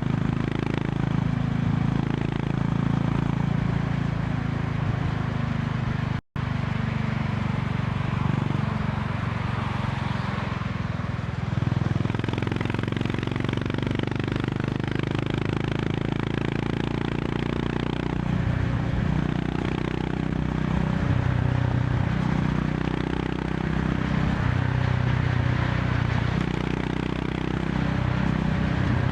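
Honda CB350 RS's air-cooled single-cylinder engine running at road speed, its pitch rising and falling with the throttle, over wind and road noise. The sound cuts out for a split second about six seconds in.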